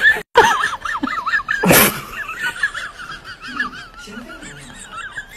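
High-pitched, wavering laughter that goes on almost without a break, with a short loud burst of noise about two seconds in.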